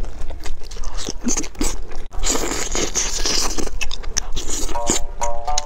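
Close-up eating sounds: crispy battered fried meat being torn and bitten, with crunching, sticky chewing and quick clicks, densest a little past halfway. Background music comes back near the end.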